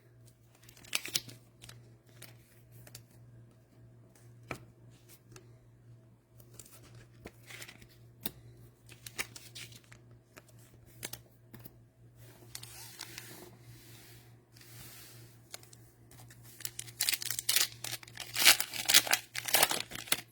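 Cellophane wrappers of trading-card cello packs being torn open and crinkled, with scattered clicks of cards being handled. The loudest tearing and crinkling comes near the end, over a low steady hum.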